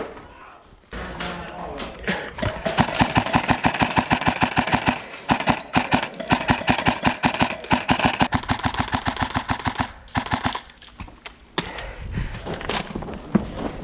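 Airsoft gun firing one long, rapid, evenly paced burst of several shots a second. It stops about ten seconds in, and a few scattered shots follow near the end.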